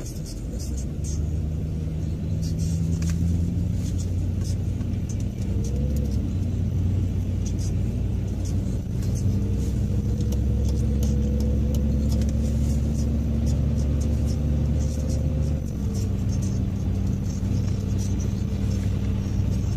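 Car engine and road noise heard from inside the cabin while driving in town traffic. The engine's hum rises slowly in pitch as the car gathers speed, then drops suddenly about three-quarters of the way through.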